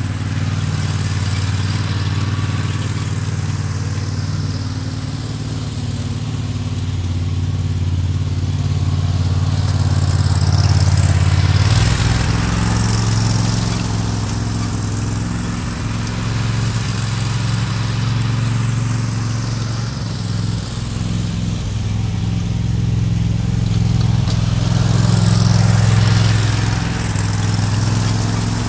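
Toro 42-inch TimeCutter zero-turn riding mower and the two 22-inch walk-behind mowers it tows, their engines running together while cutting grass. The sound grows louder as the rig passes close, about 11 seconds in and again near 26 seconds.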